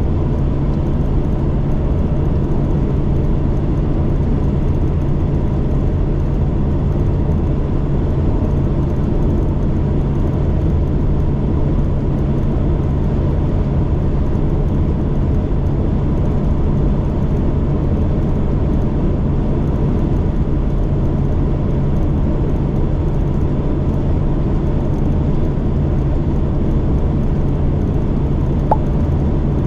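Delivery van's engine running steadily on the road with a constant low drone and road noise, with a short faint blip about a second before the end.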